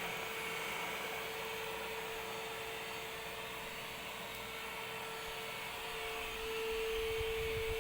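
Bossman Kaden K2 cordless stick vacuum running, a steady motor whine over an airy rush. Late on the whine grows stronger and a low rumble comes in.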